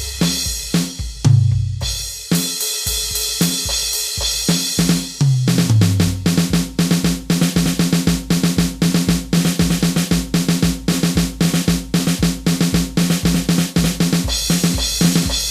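Rock drum kit playing alone, with no other instruments. Tom fills with low, falling drum tones come in the first few seconds, then a steady driving beat of bass drum, snare and hi-hat from about six seconds in.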